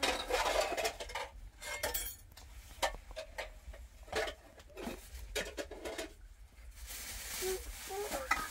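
Irregular clinks and knocks of dishes and utensils being handled, with a short hiss about seven seconds in.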